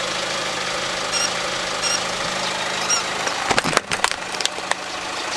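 Car engine idling steadily; about three and a half seconds in, a run of sharp crackling crunches as the tyre rolls onto and crushes a plush toy dog on gritty concrete.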